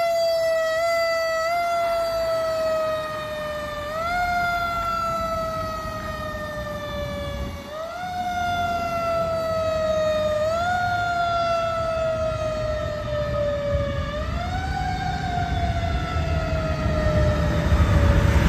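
Siren of a 2015 Pierce Arrow XT tower ladder fire truck responding to a call. Its pitch rises quickly and then slides slowly down, again and again, about every three to four seconds. Low road rumble grows near the end.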